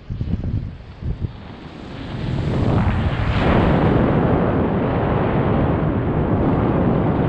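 Wind rushing over the microphone during a BASE jump. Gusty buffeting for the first two seconds, then it swells over about a second and a half into a loud steady rush as the jumper falls and flies under his open parachute canopy.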